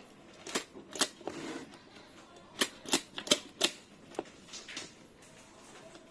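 Sharp plastic and metal clicks and light knocks of smart lock parts being handled and fitted together, in two irregular clusters: a couple about a second in, then a quick run of four between about two and a half and four seconds.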